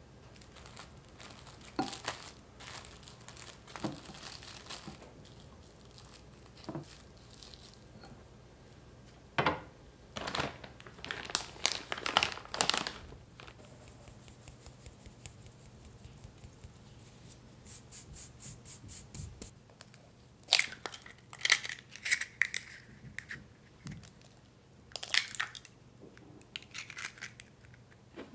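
Intermittent crinkling and tearing during food preparation, broken by light taps and clicks, with quiet stretches between bursts.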